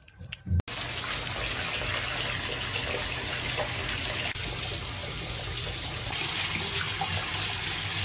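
Bathtub tap running, water pouring steadily from the spout into a shallow bath. It starts abruptly about half a second in.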